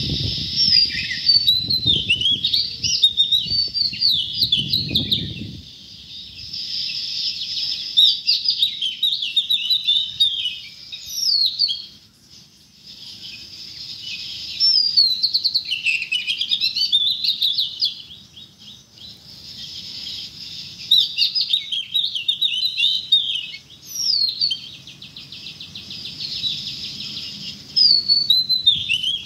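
Small birds chirping and twittering in quick, repeated phrases, coming in bouts with short pauses between them. There are some low, uneven knocks in the first few seconds.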